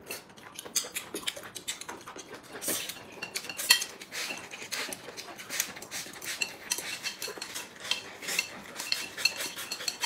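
Eating at the table: chopsticks clicking against porcelain bowls and plates, with noodles and broth slurped from a bowl held to the mouth. Many light clicks, the loudest a little under four seconds in.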